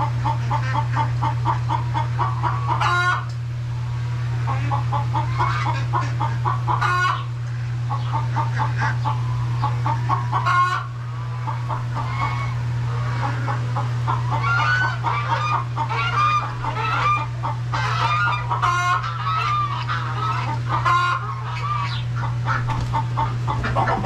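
Chickens clucking in long runs of short, rapid clucks, with a few sharper, louder sounds standing out. A steady low hum runs underneath.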